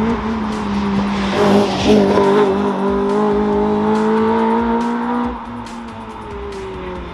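Toyota MR2 Spyder's swapped 2ZZ-GE 1.8-litre four-cylinder engine driving past under acceleration, its note climbing steadily in pitch, with a rush of tyre and wind noise as it goes by about a second and a half in. After about five seconds the note drops in pitch and fades.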